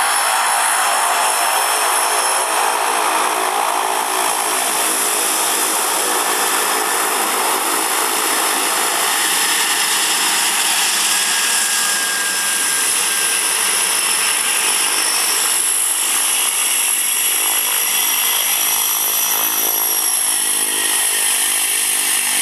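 Cessna 208 Caravan's single turboprop engine running at taxi power: a loud, steady propeller buzz with a high turbine whine over it.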